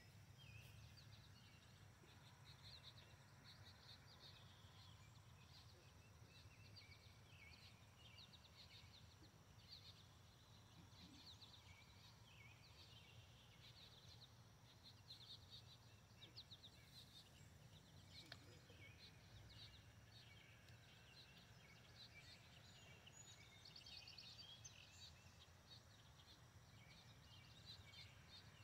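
Faint chorus of small birds chirping, many short high notes overlapping, over a low steady rumble, with a single faint click partway through.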